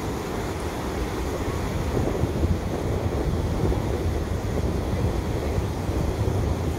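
Wind buffeting the microphone over the steady wash of breaking ocean surf: a continuous low rumbling rush with no distinct events.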